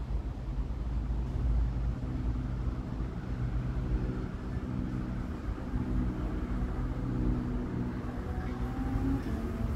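Street traffic: the steady low rumble of vehicle engines with a low hum.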